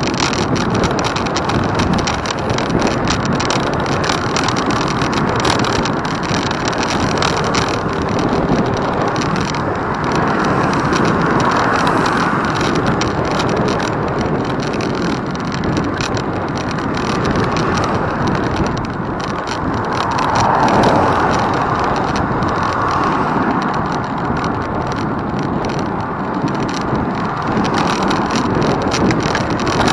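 Steady rushing noise of a vehicle in motion, swelling and easing now and then, loudest about two-thirds of the way through.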